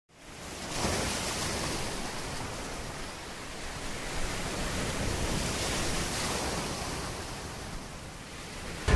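Ocean surf breaking and washing up a sandy beach: a steady rushing noise that swells and eases as the waves come in, fading in during the first second.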